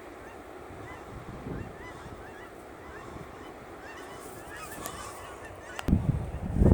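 A flock of Canada geese honking in flight, many short overlapping calls at a distance. Near the end, wind buffets the microphone loudly.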